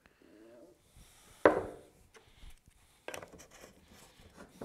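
Boiled linseed oil glugging out of a metal can into a glass jar, followed by one sharp knock about one and a half seconds in. Small clicks and scrapes of the metal can being handled follow near the end.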